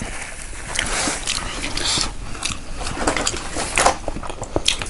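A person biting and chewing food, with many short irregular clicks and smacks.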